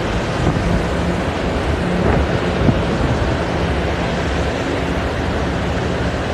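Wind buffeting the microphone over a steady low machinery hum from the bulk carrier, with a single knock about two and a half seconds in.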